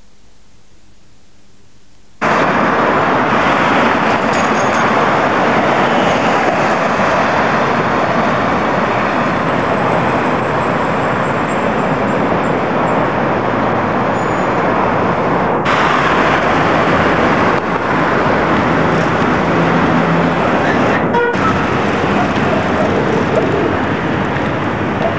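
Faint tape hiss, then about two seconds in a loud, steady rushing noise cuts in: city street traffic and wind on the camcorder microphone while moving along the road.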